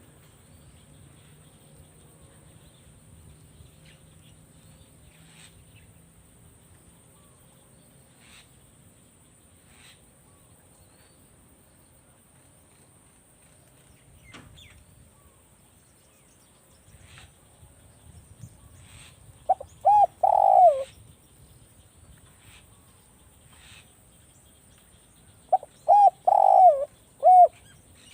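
Spotted dove cooing: two loud phrases about six seconds apart, each a few short coos running into a longer, drawn-out one. Faint scattered ticks and background sounds lie between them.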